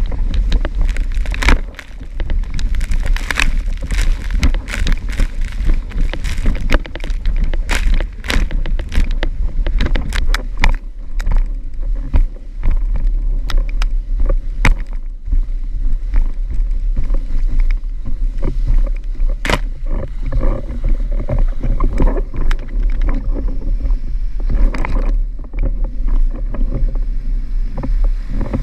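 Windsurf board planing fast over choppy water: a constant heavy wind rumble on the microphone, with frequent splashes and slaps of water against the board.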